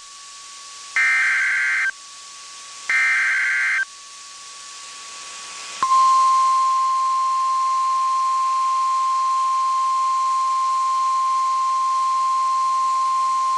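Emergency Alert System SAME header: two short, harsh digital data bursts about two seconds apart. About six seconds in, the long steady single-pitch attention alarm begins, the 1050 Hz warning tone of NOAA Weather Radio, which announces that an alert follows.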